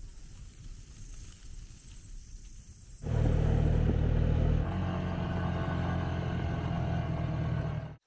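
Quad bike (ATV) engine running at a steady, low drone, coming in suddenly about three seconds in after a faint, quiet stretch.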